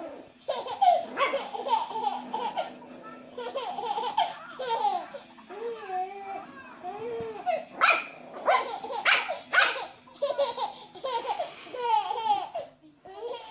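A baby laughing in several rounds of giggles, with short breaks between them.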